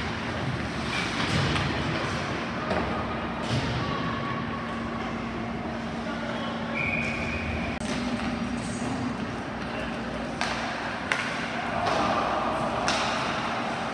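Ice hockey play in a rink: a steady wash of noise broken by sharp knocks and thuds from sticks, puck and boards, with spectators' voices and a steady low hum underneath.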